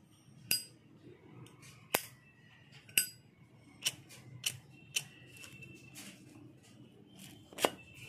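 1964 Zippo windproof lighter, chrome-plated brass, being worked by hand: about seven sharp metallic clicks as the hinged lid snaps open and shut and the insert is handled, several leaving a short high ring. The loudest click comes near the end.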